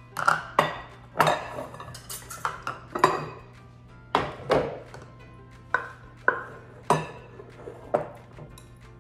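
Kitchen handling clatter as a ceramic flour canister is opened and a measuring cup goes into it to scoop flour: a string of sharp knocks and clinks, over a dozen, irregularly spaced, some ringing briefly.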